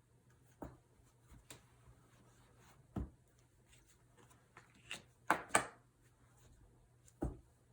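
Scattered small taps, clicks and rubs of a marker being handled and written with on a whiteboard, with a louder pair of clicks about five and a half seconds in, over a faint steady hum.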